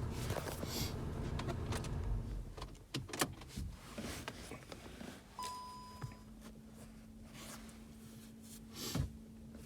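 Small clicks and knocks of handling, a low steady hum that drops away after about two seconds, and one short, high electronic beep about five seconds in.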